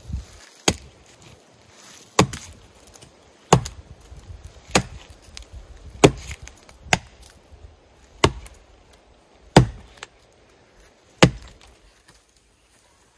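Axe chopping into the trunk of a standing pine, about ten sharp strikes roughly every second and a half, cutting a blaze through the bark.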